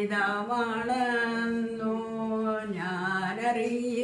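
An elderly woman singing a Malayalam Christian song unaccompanied, in long drawn-out notes, her pitch dipping and rising again about three seconds in.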